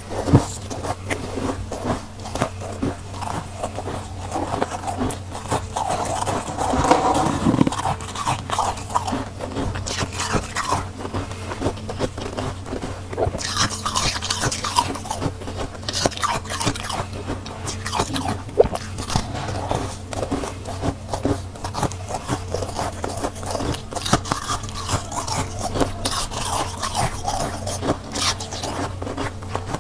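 Soft, powdery freezer frost being scraped off the freezer walls by a gloved hand and packed into a lump, with crunchy bites and chewing of the packed frost. A steady low hum runs underneath.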